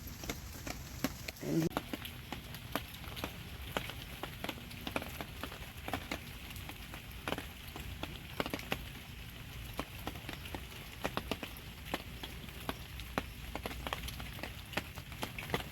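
Light rain falling, individual drops landing in irregular sharp ticks over a steady low background. A short low sound comes about a second and a half in.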